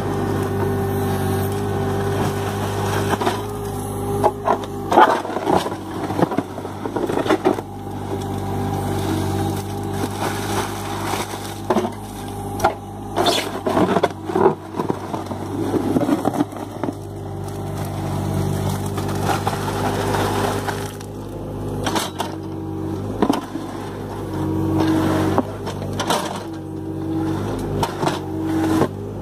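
John Deere mini excavator's diesel engine running steadily while its bucket churns wet concrete mix in a wooden mixing bin. Irregular knocks and scrapes come in clusters as the bucket grinds through the mix and strikes the timber sides.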